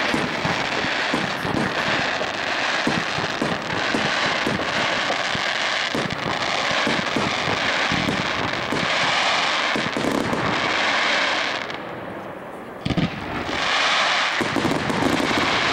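Fireworks display: a dense, continuous crackling and hissing full of rapid pops. It eases briefly about twelve seconds in, a single sharp bang goes off, and then the crackling picks up again.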